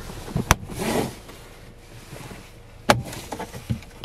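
Plastic dashboard speaker grille being handled and pressed back into place, with two sharp clicks about two and a half seconds apart and soft rustling between them.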